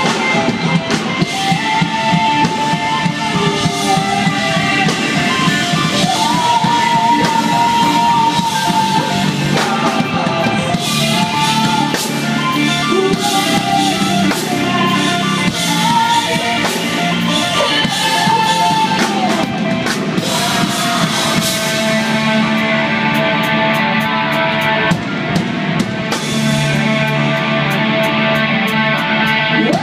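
A live rock band playing loud, amplified music: a drum kit with cymbals, electric guitars and bass, and a singer holding notes over them.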